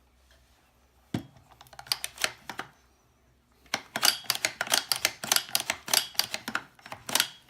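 Metal parts of a GSG-5 .22 rimfire rifle clicking and clattering as it is put back together. A single knock comes about a second in, then a quick, irregular run of sharp clicks from about four seconds in.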